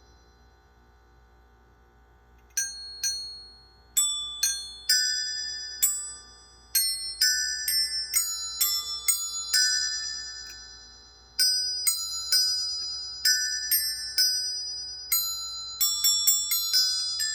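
Vintage Ye Merry Minstrel caroling Christmas bells chiming a carol tune: single struck bell notes, now and then two together, each ringing and fading. The tune starts about two and a half seconds in, after the last note of the previous phrase dies away.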